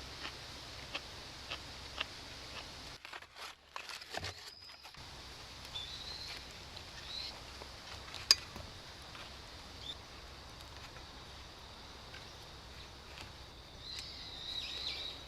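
Quiet outdoor forest ambience with scattered sharp clicks, one louder click about eight seconds in, and short high bird chirps now and then, clustering near the end.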